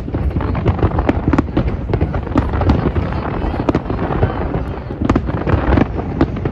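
A fireworks display in full barrage: rapid overlapping bangs and crackles, several a second, over a continuous low rumble of shells bursting.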